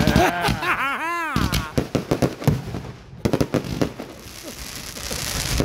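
Consumer aerial fireworks going off. In the first second or so several whistles rise and fall together, then a fast string of launch thumps and bursting reports follows. Near the end comes a steady crackling hiss of crackling stars.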